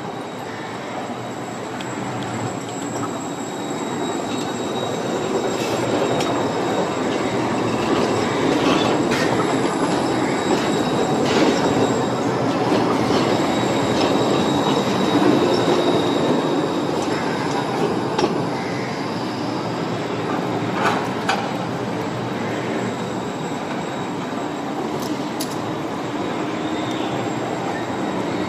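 Siemens Combino NF8 tram running on rails: rolling noise swells over the first several seconds and then holds, with a thin high wheel squeal and a few sharp clicks.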